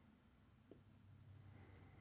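Near silence: room tone with a faint low hum and one small, faint click about two-thirds of a second in.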